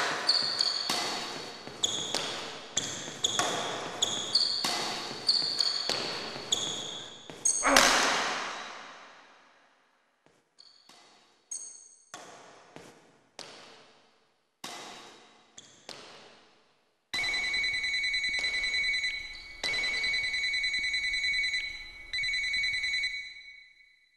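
Edited soundtrack of sharp struck sounds, each with a high ring that fades, in a quick rhythm at first and then more sparsely. After that comes a steady high electronic tone with a fast flutter that breaks off twice.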